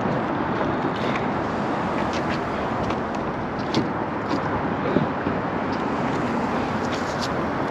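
Steady rushing outdoor background noise, with a few light clicks about four and five seconds in.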